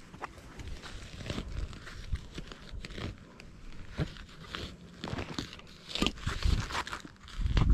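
Faint scattered crackling and rustling with small clicks, and heavier low thuds beginning near the end.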